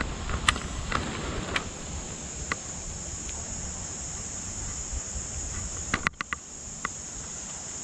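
Steady high-pitched chorus of insects in summer woodland, with scattered sharp clicks and rustles from handling, a small cluster of them about six seconds in.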